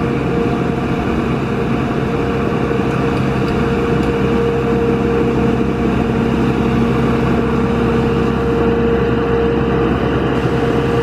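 Engine of a tracked Maxxi WD3100 ride-on rotavator running steadily as the machine crawls through wet paddy mud, a dense hum with a steady high whine over it.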